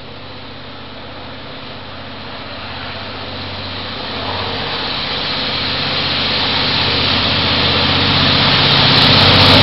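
Taiwan Railway R-class diesel-electric locomotive hauling a Chu-Kuang express, approaching through the station. Its engine and the rumble of the train grow steadily louder throughout.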